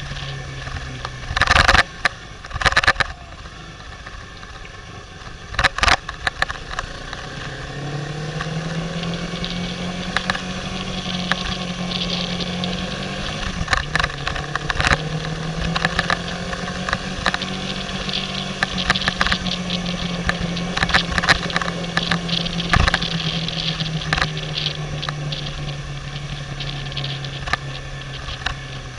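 Motorcycle engine running on the move, its note rising as it picks up speed about eight seconds in, dipping briefly near the middle, then holding and slowly easing off. Loud knocks and rattles come in the first few seconds.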